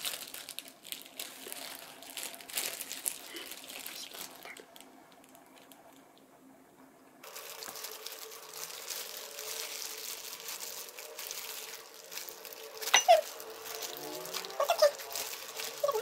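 Clear plastic disposable gloves crinkling as hands tear apart a grilled whole chicken, with crackling of the skin and meat pulling apart. It goes quieter for a couple of seconds partway through, and there are a few louder, short squeaky sounds near the end.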